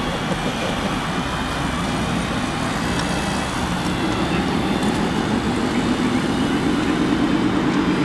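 Radio-controlled model semi-truck running steadily while its hydraulic tipper body raises. About halfway through, a low, rapidly pulsing hum joins in and holds.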